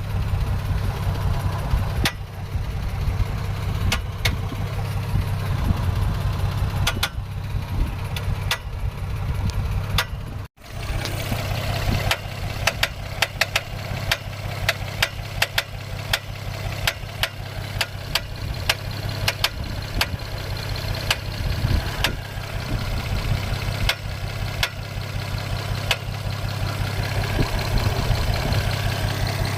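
Honda J35Y1 3.5-litre V6 idling with a sharp ticking knock from under the valve cover, every second or two at first and much more often after a brief dropout about ten seconds in. The owner puts the knock down to a seized i-VTEC piston in the third rocker arm.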